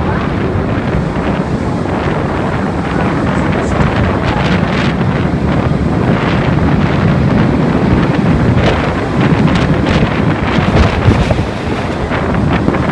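Typhoon-force wind blowing in heavy gusts and buffeting the microphone, with driving rain. It stays loud throughout, and the strongest gust comes near the end.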